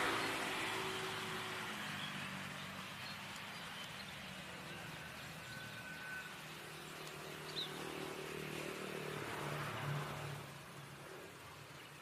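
Road traffic: a passing car's noise tails away over the first couple of seconds, then another vehicle's engine hum builds, passes loudest about ten seconds in, and fades near the end.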